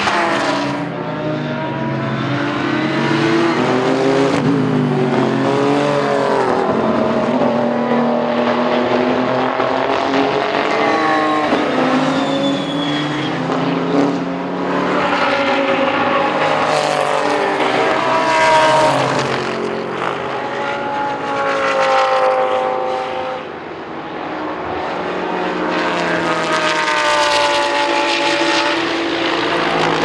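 Several GT race cars passing one after another at racing speed, their engine notes climbing and dropping as they accelerate, change gear and brake for the corners, often with two or more engines heard at once.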